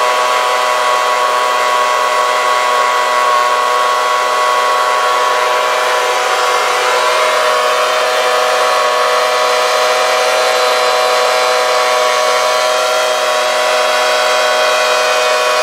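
Handheld petrol leaf blower running flat out, forcing air into the intake of a homemade jet engine to spin it up for starting. A loud, steady, buzzing engine note that shifts pitch slightly about seven seconds in.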